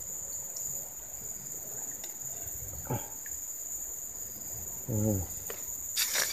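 Insects droning steadily in the forest, a continuous high-pitched buzz on two pitches. A short murmured voice breaks in about five seconds in.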